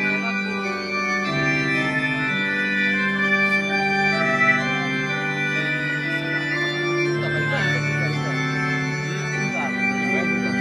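Organ playing slow, held chords, the notes changing every second or two.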